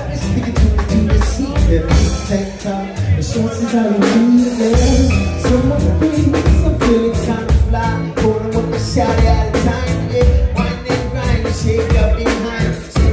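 Live band playing a song: a steady drum-kit beat under electric bass and acoustic guitar, with a singing voice.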